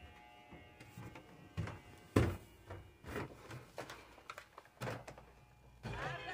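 A series of light knocks and handling thumps, the loudest about two seconds in; near the end a radio starts playing music.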